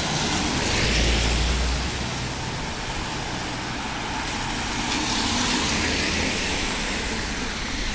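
Cars passing on a rain-wet street, with tyre hiss over a steady traffic noise. One passes close about a second in with a low rumble, and another swells up around five seconds in.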